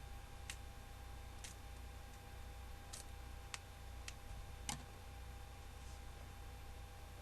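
About half a dozen faint, scattered clicks and light crinkles as a foil hockey card pack is handled and opened, over a steady low hum.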